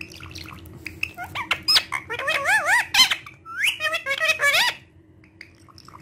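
Indian ringneck parrot giving a quick run of short calls that rise and fall in pitch, mixed with small clicks, from about a second and a half in until nearly five seconds.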